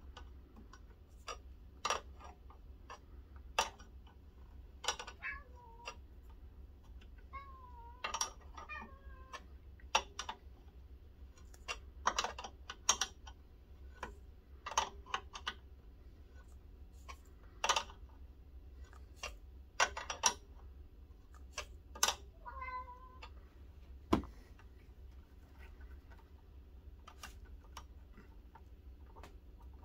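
Open-end wrench clicking and tapping against the metal hydraulic hose fittings as they are tightened, an irregular series of sharp metallic clicks with one harder knock near the end. A few short squeaky tones that fall in pitch come in between the clicks.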